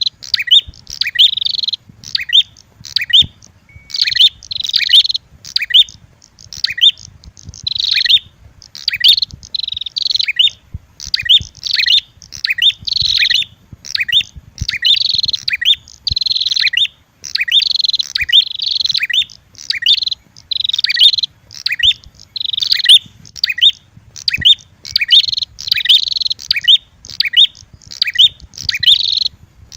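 Prenjak (prinia) lure calls, a red-headed prenjak mixed with agitated female prenjak: loud, sharp, high chirps in quick bursts, repeating with only brief gaps.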